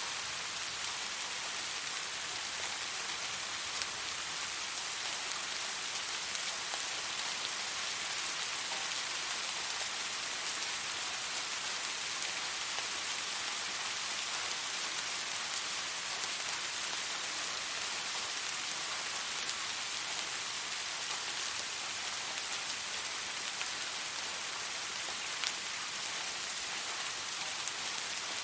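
Steady, gentle rain falling on a surface, an even hiss with scattered faint drop ticks.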